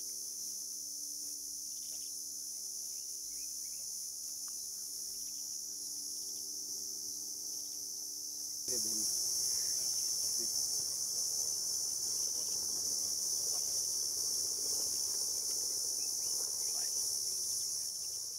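A steady, high-pitched insect chorus, stepping up in loudness a little under halfway through. A low, steady hum lies under it before the step.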